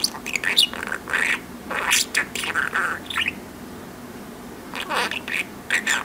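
Budgerigar chattering and warbling in quick bursts of chirps and scratchy, gliding notes, with a pause of about a second and a half midway.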